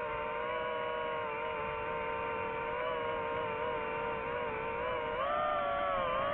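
Quadcopter drone's motors and propellers whining steadily, the pitch wavering slightly and stepping up about five seconds in.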